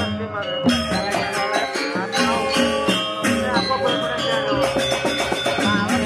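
Live gamelan music for a Janger dance: fast, evenly struck metallic notes over held tones, with rattling percussion.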